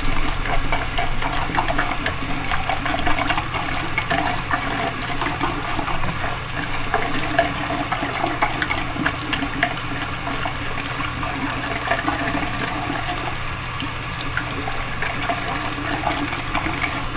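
Water running steadily from a tap into a bathroom sink, with small wet ticks and splashes as a makeup brush is scrubbed against a ridged silicone cleaning mat.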